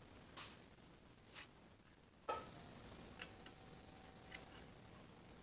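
Near silence with a few faint clicks, and one sharper click with a brief ring about two seconds in.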